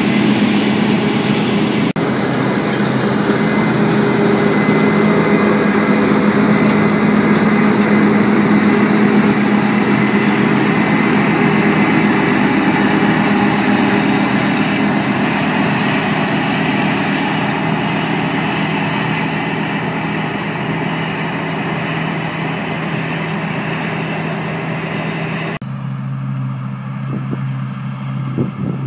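New Holland TC5080 combine harvester running steadily while cutting and threshing wheat: a constant engine drone with a low hum under it. Near the end the sound changes suddenly to a thinner hum as the combine is heard from far off across the field.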